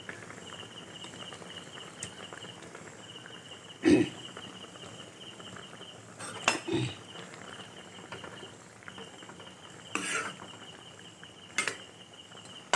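A spatula clanking against a wok of pork and elephant apple at the boil, about five separate knocks and scrapes spread over several seconds, over a faint steady bubbling.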